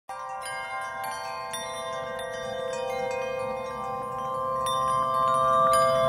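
Background music: chiming, bell-like notes over a held chord, slowly growing louder.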